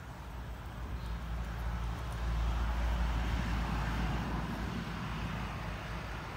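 A road vehicle passing by: a low rumble with a rushing hiss that swells to its loudest about halfway through, then fades away.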